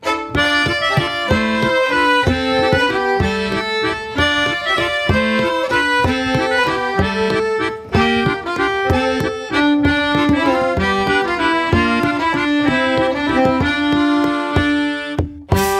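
Background music led by an accordion, with a steady rhythm. It breaks off briefly near the end and then starts again.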